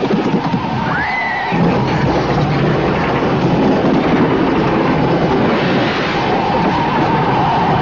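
Film sound effects of a car crash: a car's engine and a heavy, continuous rumble of the car careering off the road, with a short rising tyre squeal about a second in.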